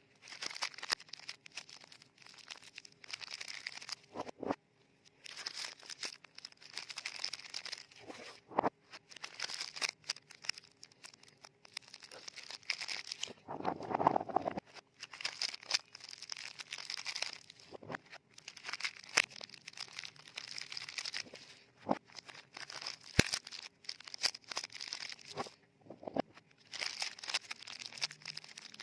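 Frosted paper soap wrappers crinkling and rustling in repeated bursts of a few seconds as soap bars are wrapped by hand, with occasional sharp taps or clicks between them.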